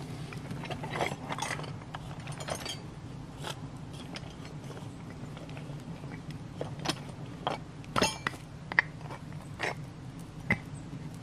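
Hand tools being handled and drawn out of a cloth tool roll: rustling of the fabric, then scattered sharp metal clinks and knocks as a steel auger bit and other tools touch, the loudest about eight seconds in.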